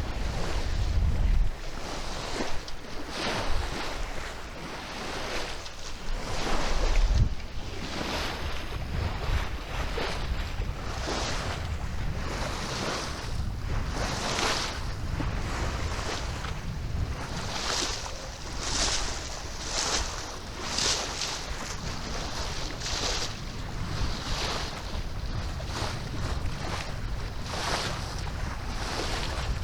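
Water rushing and splashing along the hull of a Maxi 95 sailboat moving under sail, with wind buffeting the microphone. In the second half the swishes of water come about once a second.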